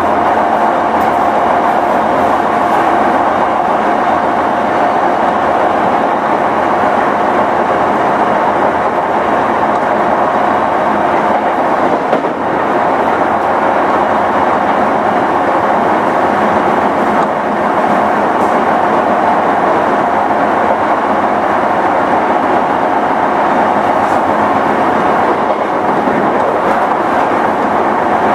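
Sotetsu 11000 series electric train running at steady speed, heard from inside motor car MoHa 11801: even rolling noise with a steady whine.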